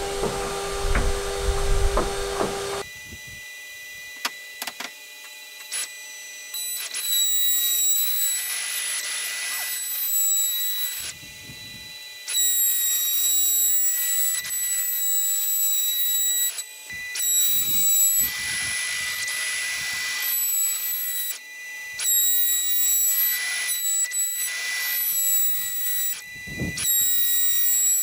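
Woodworking power tools running and cutting wood. A machine with a steady hum plays for the first few seconds, then gives way abruptly to a high-pitched whine with surges of cutting noise, which cuts off suddenly several times.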